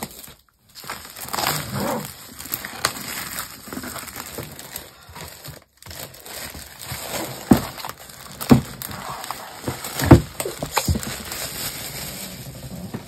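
Plastic packaging rustling and crinkling as the framed canvases and bags of drills are handled, with three sharp knocks of the canvas frames against each other or the table in the second half, the last one the loudest.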